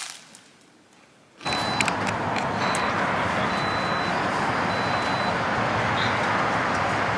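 Steady, even vehicle noise that cuts in suddenly about a second and a half in, with faint, brief high tones coming and going over it.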